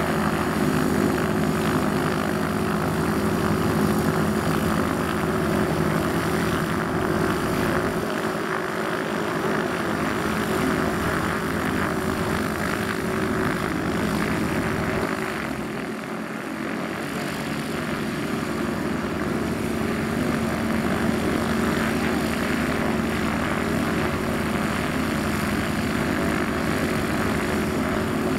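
Piston engines of light propeller aircraft running at low power on the taxiway: a steady propeller drone that dips briefly about halfway through.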